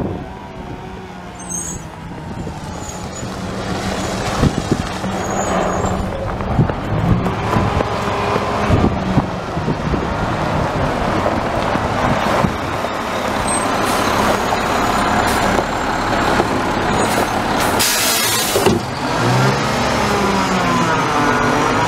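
McNeilus front-load garbage truck running, its diesel engine revving as the hydraulic arms lift a steel dumpster over the cab, with scattered clanks of the container. A short loud burst of air hiss comes about 18 seconds in, and the engine pitch rises just after.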